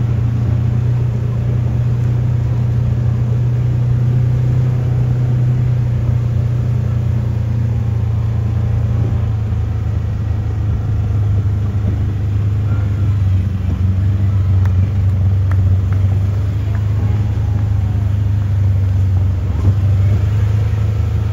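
A steady, low engine drone whose pitch dips a little midway and then climbs back.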